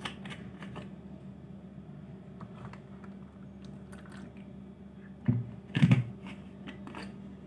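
Faint clicks and knocks from handling a cup and a vinegar bottle, with two dull thumps about five and six seconds in, over a steady low hum.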